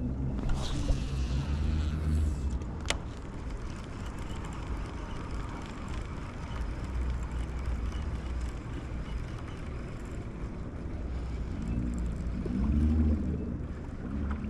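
An engine running, a steady low drone whose pitch swings up and down near the end; a single sharp click about three seconds in.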